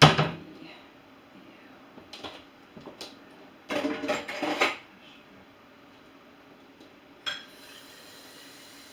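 Dishes and cutlery being handled: a loud clatter at the start, a few light knocks, then a run of clinking about four seconds in and a single click near the end.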